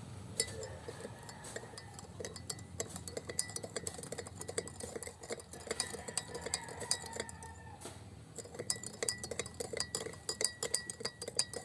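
A spoon stirring in a glass, clinking against its sides many times a second, busiest in the last few seconds.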